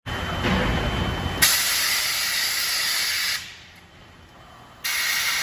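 Compressed air hissing in on-off bursts. A loud hiss cuts in about one and a half seconds in, stops abruptly two seconds later, and starts again near the end. The first second or so holds a lower rumble.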